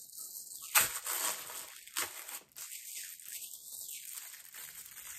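Plastic wrapping crinkling and tearing as a clear lip gloss wand tube is unwrapped by hand, with a sharp crackle about a second in.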